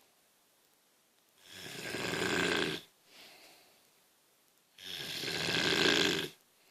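A woman snoring: two long snores, each about a second and a half, roughly three seconds apart, with a faint breath just after the first.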